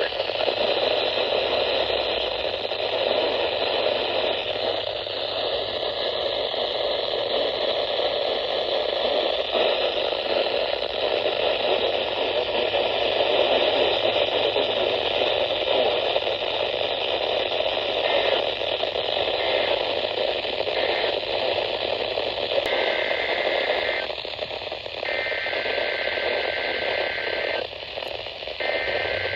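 Weather radio receiver hissing with static on a weak signal. From about 18 seconds in, broken bursts of two steady high tones come through, the FSK data of EAS SAME header bursts, received weakly.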